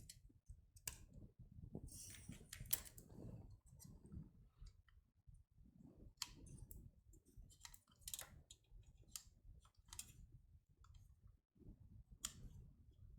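Faint, scattered clicks and knocks of hands handling a hard drive and its cable connections while swapping in a different drive.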